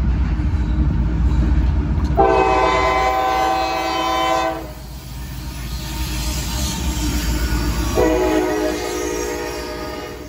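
CSX freight locomotive's air horn sounding two long blasts, one about two seconds in and another near the end, over the heavy rumble of the lead locomotive and the wheels of the intermodal train passing close by. The blasts are a grade-crossing warning.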